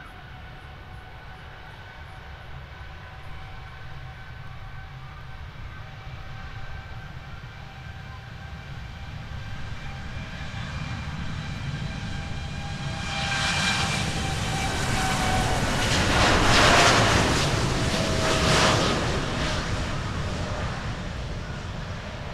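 A Boeing 787-8's Rolls-Royce Trent 1000 turbofans at takeoff thrust as the airliner accelerates down the runway: a steady jet whine with several held tones over a low rumble. It grows louder to a peak as the plane rolls past about two-thirds of the way in, the tones dropping slightly in pitch, then it fades a little.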